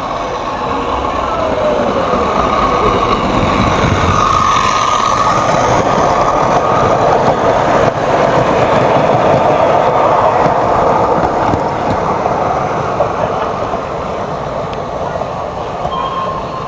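Recorded train sound effect from a 45 rpm record played back on a 1960s record player: a passing train's rumble and wheel clatter, growing louder over the first few seconds and fading over the last few.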